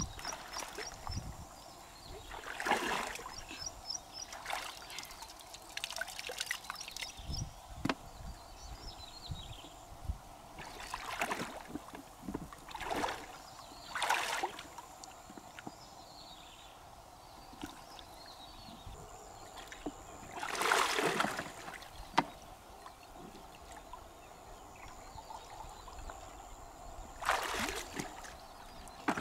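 Water sloshing and splashing in irregular swells as a person wades through thigh-deep river water in waders. Faint high chirps sound in the first several seconds.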